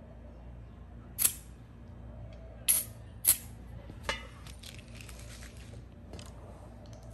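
Sharp plastic clicks and a light rattle of airsoft BBs as an airsoft pistol magazine is loaded from a BB loader: four loud clicks in the first four seconds or so, then fainter ticking.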